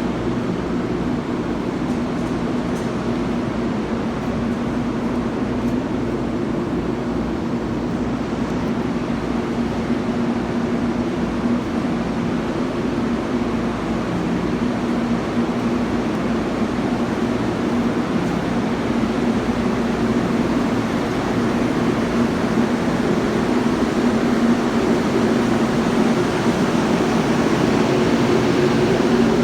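Steady hum of Metro-North electric commuter trains at the platform, a held drone over a noisy bed of equipment sound, getting slightly louder near the end.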